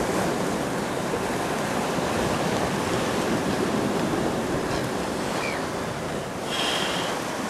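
Sea surf washing and breaking over coastal rocks, a steady rush, with some wind on the microphone.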